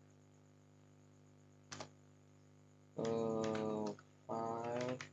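Computer keyboard keystrokes: a single key click about two seconds in, then more typing near the end. Over the typing come two loud pitched tones, each under a second long and rising slightly in pitch; they are the loudest thing heard.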